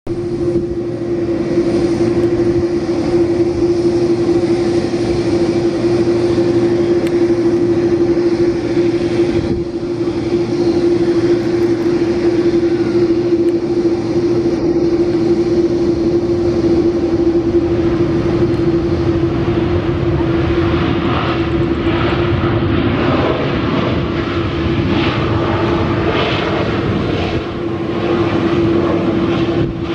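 Boeing 737-800's CFM56-7B turbofan engines during landing: a continuous jet drone with a steady underlying hum, becoming rougher and hissier about two-thirds of the way through as the airliner rolls out along the runway.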